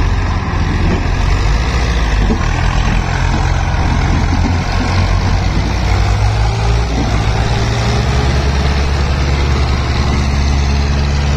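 Swaraj 855 FE tractor's three-cylinder diesel engine running steadily under load as it hauls a loaded sand trolley through soft, wet ground. The engine note dips briefly about seven seconds in, then holds steady again.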